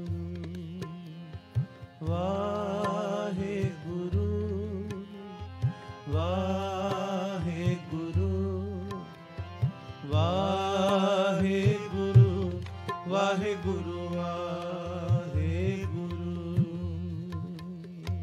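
Sikh kirtan: harmonium and tabla playing under long, wordless vocal phrases with a wavering, ornamented pitch, rising and falling in about four swells. The music fades near the end.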